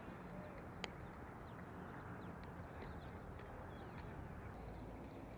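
Open-air ambience at a baseball field: a steady low background hum, with one sharp crack about a second in and a few faint bird chirps.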